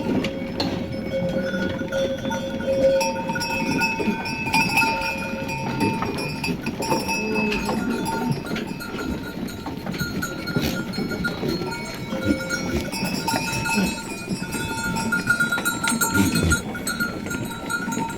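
Bells on a flock of sheep clanking and ringing without a break, several bell tones overlapping and fading in and out, over the constant low shuffle of the moving flock.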